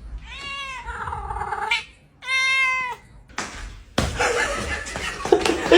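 A cat meowing twice: a long, drawn-out meow that rises and falls, then a shorter, level one. A stretch of rough, unpitched noise follows.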